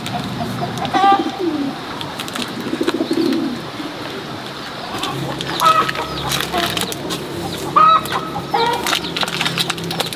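Farmyard fowl calling: short clucking calls several times, with low cooing in the first few seconds. Light clicks and rustling from oyster mushrooms being snapped off plastic grow bags run underneath.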